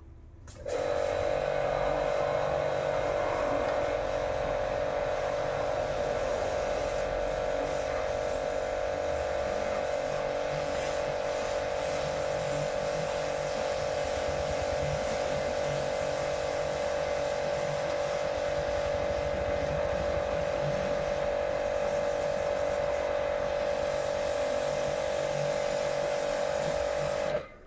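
High-pressure car-wash washer running while its spray gun is in use: a steady, even motor-and-pump hum that starts suddenly about a second in and cuts off just before the end.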